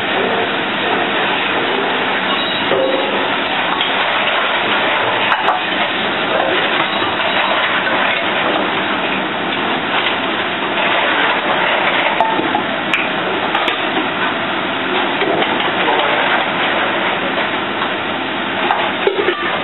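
Steady din of a working restaurant kitchen: a constant loud hiss of cooking and equipment, with a few clinks of pans and utensils and faint background voices.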